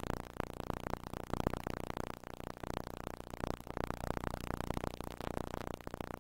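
Scratchy, crackling noise over a steady electrical hum from a VHS deck's audio output while the videotape rewinds.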